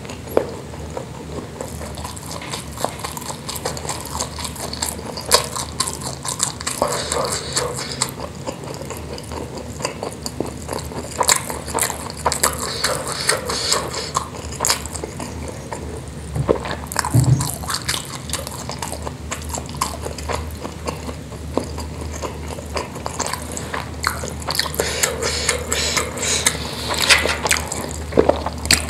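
Close-miked wet chewing of spicy meatballs and rice, with many short, irregular smacks and clicks of the mouth over a steady low hum.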